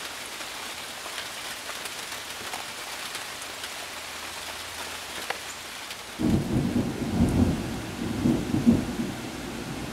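Steady rain hiss with scattered drips. About six seconds in, a low rumble of thunder sets in suddenly and rolls in waves for about three seconds before fading back into the rain.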